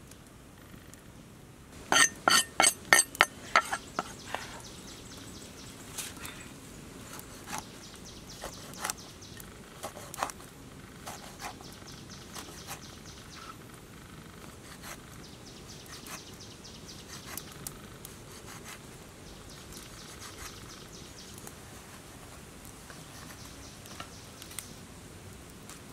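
Sharp knocks on wood: a quick run of about eight loud knocks around two seconds in, then scattered lighter knocks and taps as a knife cuts a whole catfish on a round wooden chopping board.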